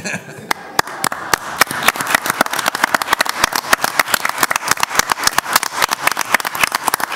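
Audience applauding, with many individual claps distinct.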